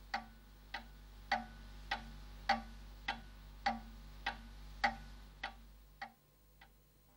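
Clock ticking steadily, a little under two ticks a second, over a faint low hum; the ticking stops shortly before the end.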